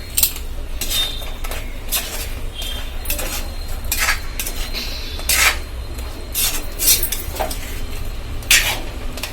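A spoon stirring thick crab gravy in a cooking pan, clinking and scraping against the pan at irregular moments about once a second, over a low steady hum.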